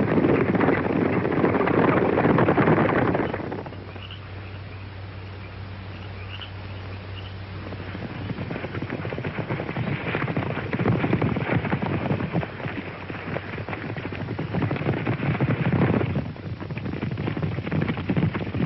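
Hoofbeats of many galloping horses, a dense drumming that is loud for the first few seconds, drops away, then builds again about halfway through.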